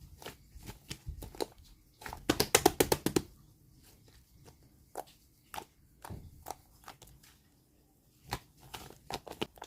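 Clear slime being squeezed and pressed by hand, giving off scattered sticky clicks and small air-bubble pops, with a quick run of loud pops about two to three seconds in.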